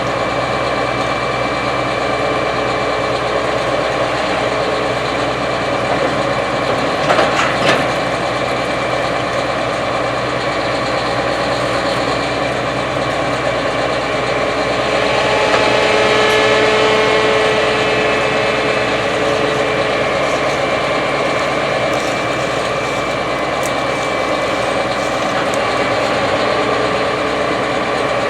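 Gleaner S97 combine harvester running steadily while harvesting, a continuous machine drone with a steady high whine on top. There is a brief rattle about seven seconds in and a swell in loudness near the middle.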